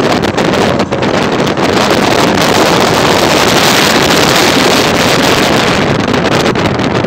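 Wind rushing over the phone's microphone from an open-sided vehicle driving along a road, over the vehicle's running noise. The rush grows louder through the middle and eases near the end.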